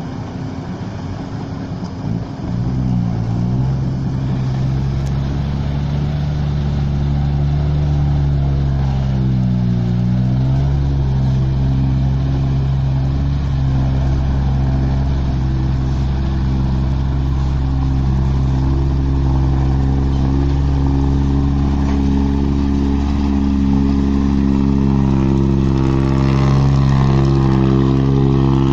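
Small loaded diesel tipper truck's engine pulling hard in low gear as it climbs a dirt ramp out of a pit. Its pitch rises a couple of seconds in, dips and recovers about ten seconds in, then holds steady, and it grows louder near the end as the truck comes close.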